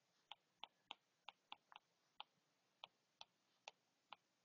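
Faint, irregular ticking of a stylus tip tapping a tablet touchscreen while handwriting, about a dozen light taps.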